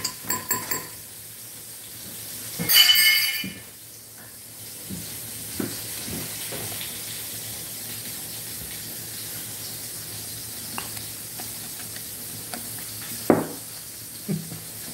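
Metal spoon and wire whisk scraping and clinking against a glass measuring cup while stirring a thick batter of milk, cornstarch and flour whose cornstarch has clumped. There is one louder ringing scrape about three seconds in and a couple of sharp clinks near the end.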